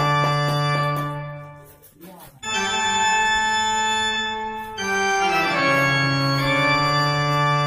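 Background music of held organ-style keyboard chords. The chord fades out about two seconds in, a new one comes in half a second later, and the harmony changes again about five seconds in.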